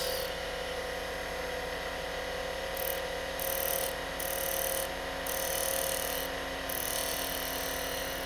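Small wood lathe running with a steady motor whine while a skew chisel cuts the spinning wooden ring blank, rounding over its edge. The cutting hiss comes and goes in passes of about a second each.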